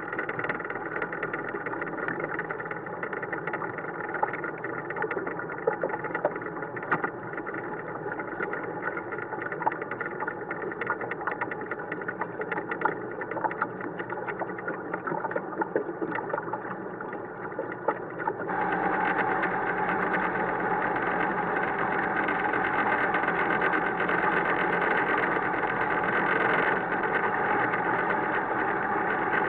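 A boat's railing rattling in quick, irregular clicks over the steady hum of the boat's engine. About 18 seconds in, the engine note steps up and runs louder, with the rattle less distinct.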